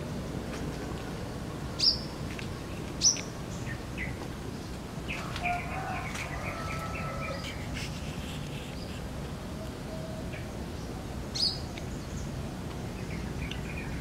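Yellow-vented bulbul calling from a tree: three short, sharp high notes about two, three and eleven seconds in, and a brief run of chattering notes around the middle, over a steady low background noise.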